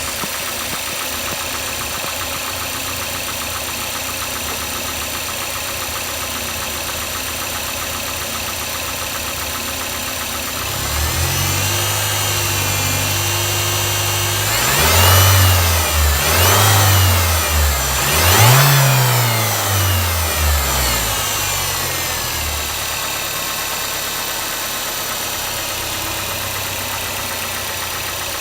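Mazda 6 MPS's turbocharged 2.3-litre four-cylinder engine idling with a light knocking tap, then revved up about 11 seconds in and blipped three times before settling back to idle. The knock shows only from idle up to about 1500 rpm; with the con-rod and main bearings already checked, the owner suspects the variable valve timing (VVT) actuator.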